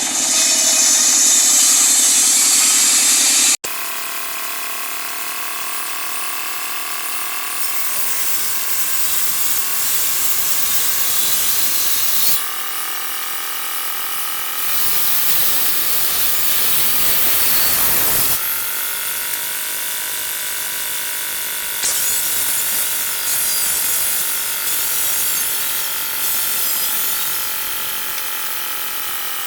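Electric woodworking power tool running and working wood, its motor whine sagging in pitch under load and then recovering. The sound changes abruptly several times.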